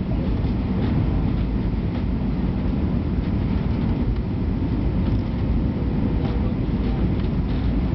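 Steady low-pitched cabin noise of an Airbus A320 on final approach, from its engines and the airflow over the fuselage, as heard from a window seat inside the cabin.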